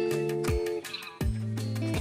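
Background music: sustained instrumental notes over a steady beat.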